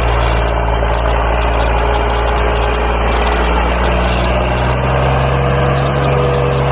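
Swaraj 744 XT tractor's three-cylinder diesel engine running hard under load as it pulls a heavily loaded trolley up out of a rut. The engine note is steady and rises slightly in pitch about two-thirds of the way through.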